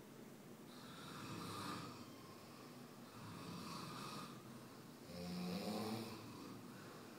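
Snoring: three snores about every two seconds. The third is lower-pitched and the loudest.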